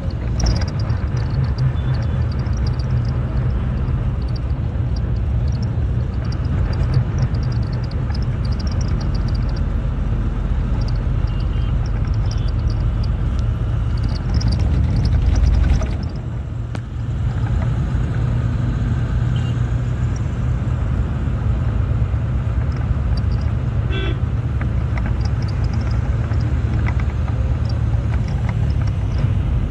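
Road traffic heard from a moving vehicle: a steady engine drone with road and wind noise, swelling and briefly dropping about halfway through, and a short horn toot later on.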